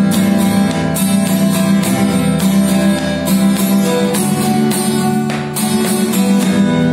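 Steel-string acoustic guitar strummed in a steady down-and-up rhythm, repeating the strum pattern, with a chord change about four seconds in.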